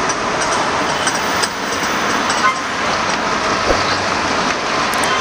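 Steady noise of busy road traffic, cars passing close by.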